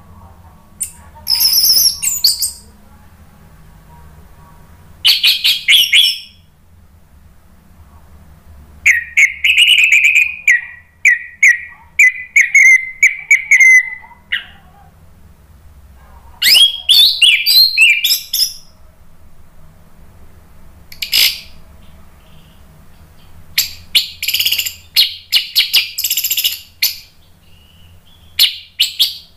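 Orange-headed thrush singing in separate bursts of rich, varied phrases with short pauses between them. About nine seconds in it sings a longer run of quick repeated notes lasting some five seconds.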